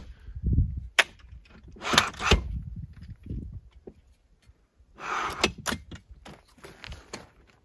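Telescoping rooftop-tent ladder being extended section by section from the top, its stair locks snapping into place with sharp clicks: one about a second in, a cluster around two seconds, and more from about five to seven seconds, with a few low knocks between.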